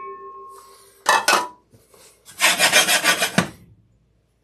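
Cumin seeds and peppercorns being worked about in a hot dry pan. It opens with a brief metallic ring and two knocks, then about a second of fast scraping rattle.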